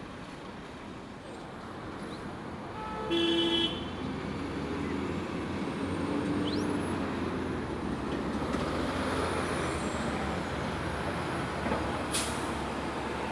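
Steady city traffic rumble with one short vehicle horn toot about three seconds in, and a sharp click near the end.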